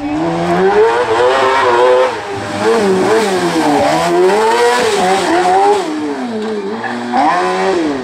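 Racing buggy engine revving hard, its pitch climbing and falling several times as it lifts off and accelerates through a tight corner.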